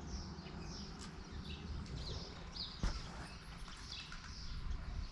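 Small birds chirping repeatedly, short high chirps two or three a second, some sliding downward, over a faint low rumble. One short knock about three seconds in.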